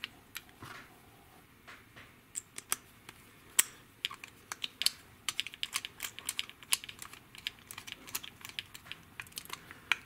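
Small, irregular clicks and taps of a screwdriver tip working a little brass jet into a lawnmower carburetor body. The clicks come quicker and thicker in the second half.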